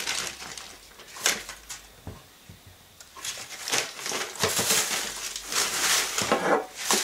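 Baking paper rustling and crinkling as it is peeled off a Swiss roll and crumpled up by hand. The sound is sparse at first, then a dense crinkling starts about three seconds in.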